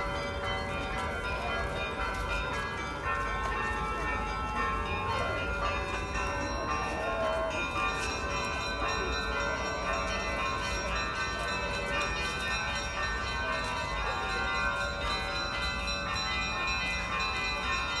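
Russian Orthodox church bells ringing on and on, several bells of different pitches sounding together.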